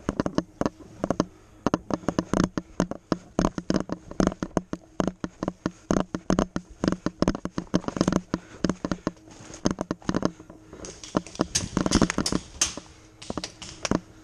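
Quick footsteps crunching through forest undergrowth at a run, with leaves and ferns brushing past; the brushing and crunching is densest a little over ten seconds in.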